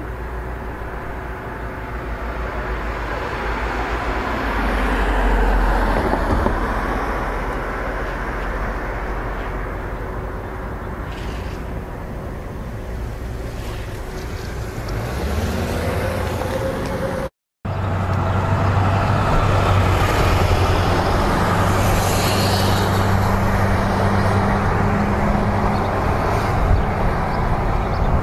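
Street traffic noise: motor vehicles running and passing on the road, a steady rumble that swells about five seconds in. After a brief cutout partway through, a steady low engine hum carries on.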